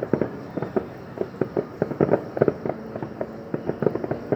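Aerial fireworks display going off: a dense, irregular run of sharp pops and bangs, several a second.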